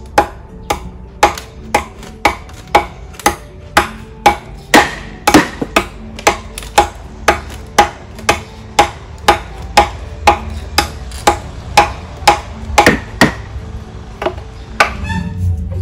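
Machete blows chopping into bamboo: sharp, even knocks about two a second that stop a couple of seconds before the end, over faint background music.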